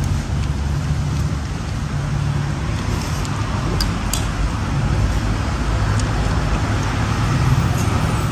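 Steady rumble of road traffic, with a few light clinks of a metal spoon against a plastic bowl around the middle.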